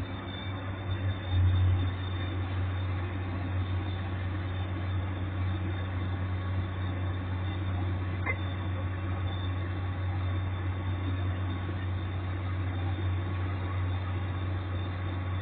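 Komatsu PC200 excavator's diesel engine running steadily with a low drone, swelling briefly about a second and a half in. A single short click sounds about eight seconds in.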